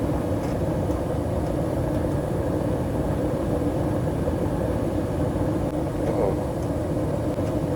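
Gas furnace blower motor running steadily under strain, struggling. Its run capacitor measures out of range, 5.3 µF against a rated 7.5.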